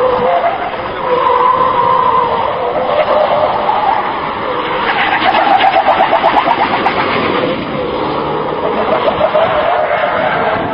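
Semi-truck tractor unit's diesel engine revving hard as the truck drifts through the turns. The pitch rises and falls with the throttle, peaking about halfway with a fast pulsing sound.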